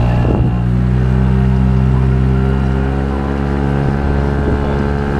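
5 hp Mercury outboard motor running at a steady speed, pushing a small boat along the river.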